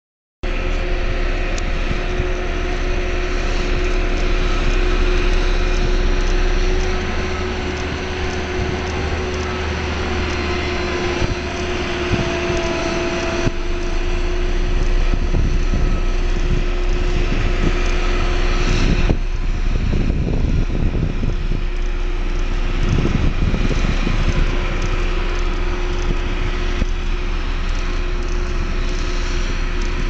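An engine running steadily with a constant hum, which drops away about two-thirds of the way through. Low rumbling gusts of wind on the microphone follow.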